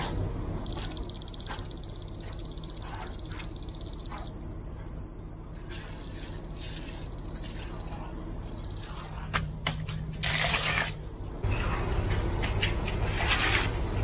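Laser receiver on a grade rod beeping rapidly as it picks up a rotary laser's beam, the beeps briefly merging into a held tone around four to five seconds in, then beeping fast again until about nine seconds. A fast beep on such receivers marks the rod off grade and a solid tone marks it on grade. Short bursts of scraping noise follow near ten seconds and near the end.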